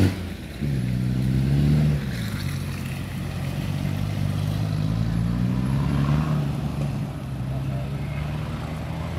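Off-road 4x4 engine revving up once about a second in, then running steadily at low revs with a slight rise in the middle.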